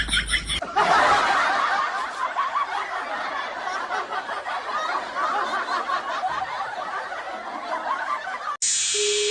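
Many voices laughing and snickering together in a dense, continuous stretch of laughter. It cuts off suddenly near the end as music begins.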